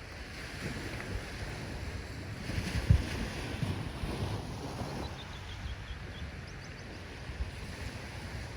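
Ocean waves washing in, with wind rumbling on the microphone. A wave surges about three seconds in, with a sharp low buffet that is the loudest moment.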